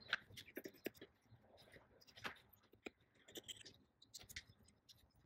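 Fabric scissors cutting through faux leather vinyl: faint, irregular snips and clicks of the blades, with the sheet rustling as it is handled.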